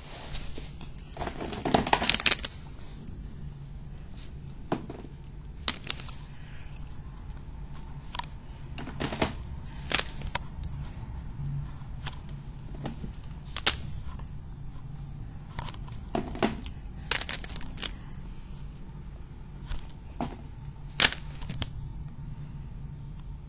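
Plastic WWF wrestling action figures clacking and knocking against each other as they are handled, in scattered clicks, a quick cluster of them about two seconds in, over a steady low hum.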